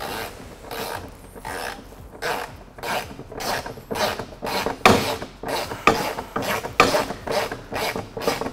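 Hand ratchet socket wrench being worked back and forth to tighten a bolt on a steel chassis bracket, the pawl rasping on each return stroke, about two strokes a second.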